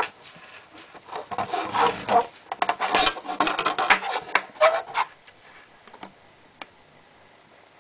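A plastic CD case being handled and moved into place by hand, a run of clicks, rattles and scrapes for about four seconds, then one sharp click a little later.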